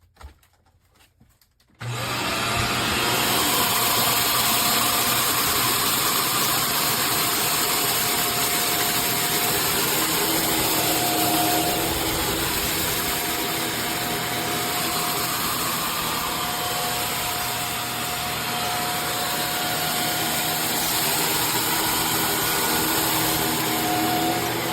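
Shark Stratos upright vacuum switched on: a click, then about two seconds in the motor starts suddenly and runs steadily at full suction, with a whine whose pitch shifts a little.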